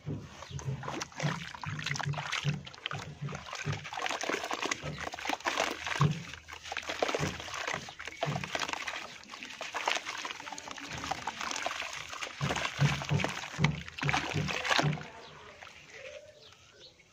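Hands squeezing and crumbling a soaked grey lump of powdery material in a plastic basin of water, with squelching, sloshing and splashing. The sound stops about fifteen seconds in.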